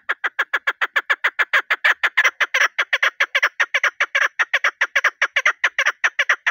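Female chukar partridge calling: a fast, steady run of short clucking notes, about seven a second. This is the hen's call that cock chukars answer.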